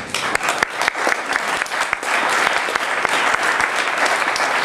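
Audience applauding, starting as separate claps and filling out into dense, steady applause about two seconds in.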